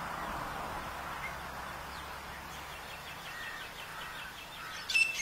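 Steady background hiss with a faint quick run of ticking notes in the middle, then a loud, sharp francolin call just before the end.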